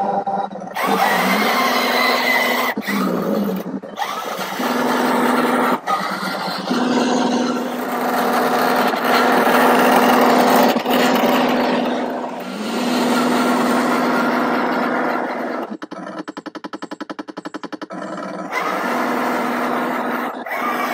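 A radio-controlled 1:6 scale M5 Stuart tank's onboard sound unit playing simulated engine noise as it drives, the engine note gliding up each time it pulls away. About three quarters of the way through, a fast, regular pulsing stretch.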